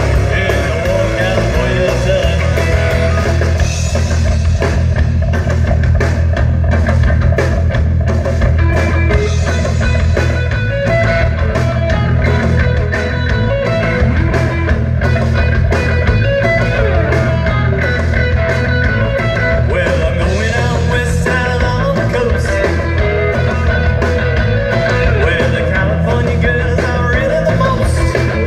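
Live rock band playing: two electric guitars, electric bass and a drum kit keeping a steady beat.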